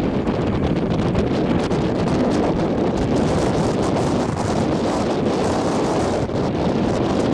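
Strong wind buffeting the microphone over the steady noise of a long container freight train passing.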